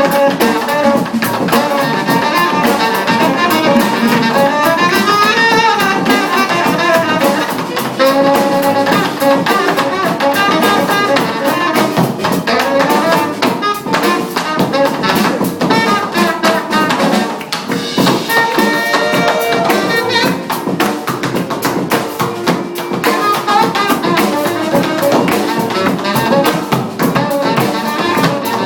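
Funk band playing: a saxophone carries a bending melodic line over a busy drum kit beat.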